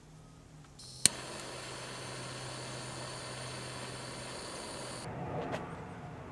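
Handheld butane soldering tool lit with one sharp igniter click, then hissing steadily at the wire for about four seconds before cutting off abruptly.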